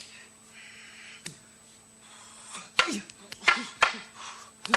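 Martial artists fighting: sharp smacks of blows landing, several with a short grunt, and breathy exhalations between them. The blows are sparse at first and come in quick succession in the second half.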